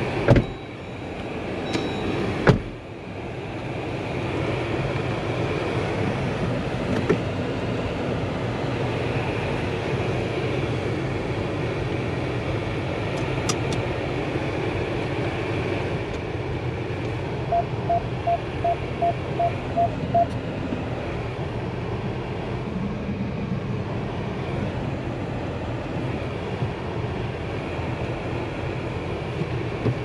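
Steady running noise of a 2023 Jeep Compass with the 1.5-litre four-cylinder mild-hybrid petrol engine, broken by two sharp thumps in the first few seconds. About two-thirds of the way through, a string of about eight short beeps sounds, evenly spaced.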